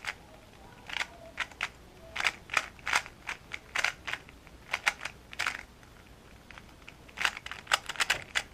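Irregular clicks and clacks of small hard plastic items being handled and pushed into a bag while packing, in quick clusters with a short pause about two-thirds of the way through.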